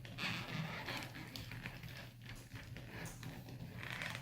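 Faint handling noise of a plastic 1/6 scale action figure: light clicks and rubbing as its waist joint is turned side to side, over a low steady hum.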